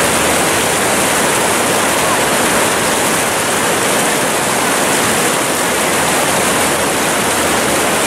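Whitewater rapids rushing steadily: a loud, even wash of turbulent river water.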